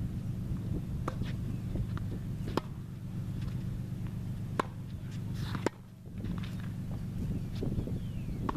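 Tennis balls being struck by racquets and bouncing on a hard court during a warm-up rally: sharp pops every second or two, four of them louder, over a steady low rumble.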